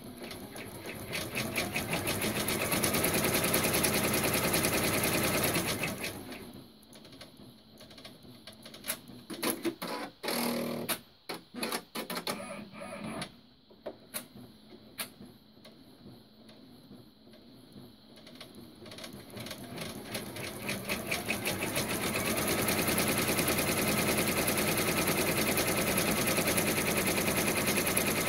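Brother PR1050X multi-needle embroidery machine stitching lettering into felt, a fast even needle rhythm. It speeds up at the start, then slows and stops after about six seconds. A long stretch of scattered clicks and knocks follows before it speeds up again and stitches steadily to the end.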